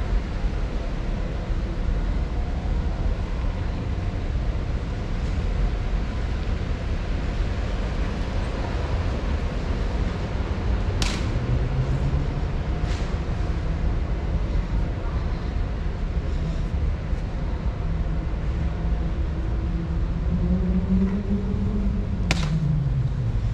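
Steady low rumble of indoor ambience inside a large store, with a few sharp clicks around the middle and once near the end.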